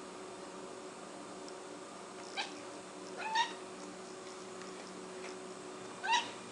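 Sphynx kitten giving three short, high-pitched calls while hunting a fly, each one brief and rising in pitch, the second and third louder than the first.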